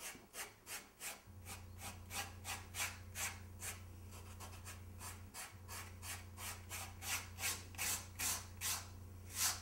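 Fingers rubbing fine sifted dirt into a model road surface, a rhythmic scratchy stroke about three times a second, louder toward the end. A steady low hum runs underneath.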